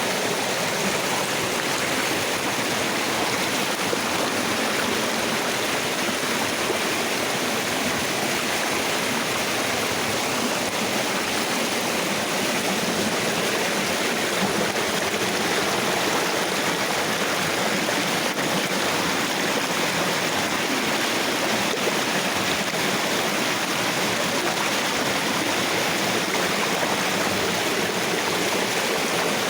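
Flowing water of a river or stream rushing steadily over rocks, an even, unbroken rush.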